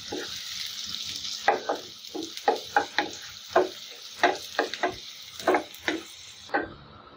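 Sliced onions and green chilies sizzling in hot oil in a nonstick frying pan, stirred with a wooden spatula that scrapes and taps the pan in quick strokes, about three a second. The sizzle drops away near the end.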